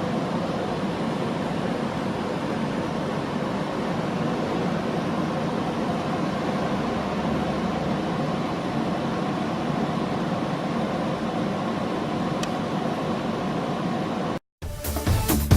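Nagasawa SawaBoy NSG-08F food grinder running at a steady, even level during its test run. It cuts off abruptly near the end, and electronic music starts.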